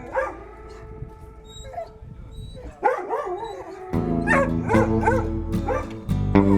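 Dogs yipping and howling in short calls that waver in pitch, over background guitar music that gets louder about four seconds in.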